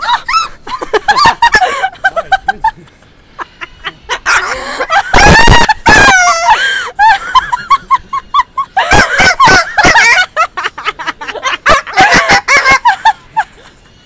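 White cockatoo calling: a run of choppy, speech-like squawks and cackles, with one long, loud screech about five seconds in.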